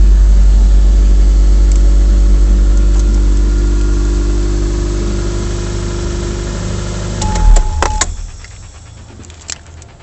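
Toyota MR2 engine idling steadily inside the cabin, then switched off at the ignition key about seven seconds in, with a few sharp clicks as it shuts down.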